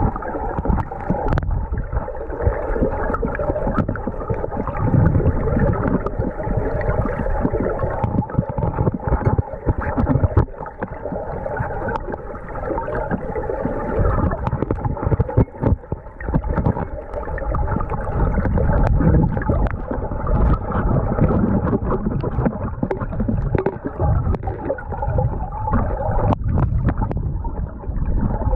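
Muffled rush and gurgle of river current heard underwater, with a steady hum and scattered sharp clicks.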